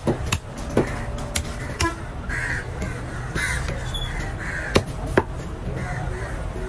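Crows cawing, about four rough caws spread through the middle, over sharp knocks of a large fish knife chopping through tuna loin onto a wooden board. The two loudest knocks come close together about three-quarters of the way in.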